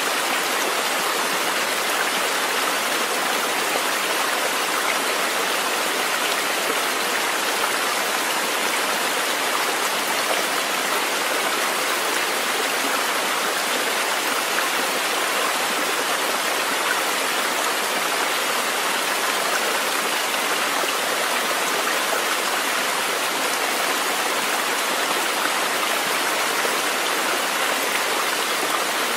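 Steady, unchanging sound of a running stream: a nature-sound recording laid over the pictures.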